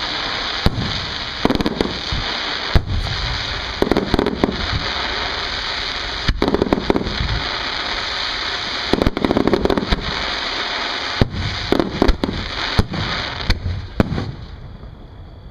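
Fireworks display: aerial shells bursting in a fast, irregular series of sharp bangs and booms, some in dense clusters of cracks. The bangs thin out and the sound dies down near the end.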